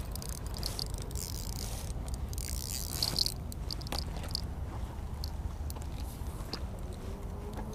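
Wind rumbling on the microphone, with scattered clicks and a short scrape about three seconds in from handling a spinning reel and fishing line.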